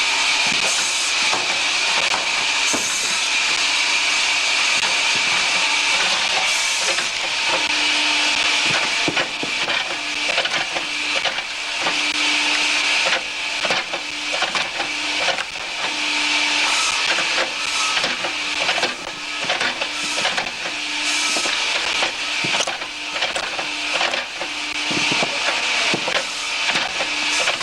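Hydraulic firewood cutting and splitting machine at work: a steady loud hiss with a hum that switches on and off every second or two from about a third of the way in, and many sharp cracks and knocks of logs being cut and split.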